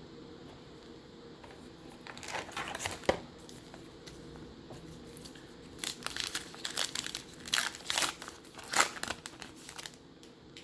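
Trading card pack wrapper crinkling and tearing as it is opened: a short burst of crinkles about two seconds in, then a longer run of crinkling from about six seconds to near the end.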